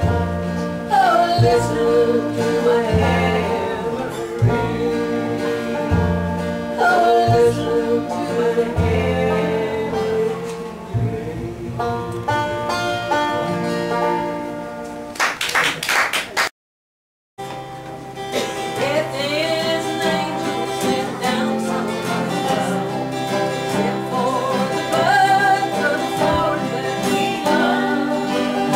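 Acoustic country jam: five-string banjo, acoustic guitar, a lap-played slide guitar and plucked upright bass playing a tune together. About 16 seconds in the music cuts off into a second of silence, then another tune starts on banjo and guitars without the bass.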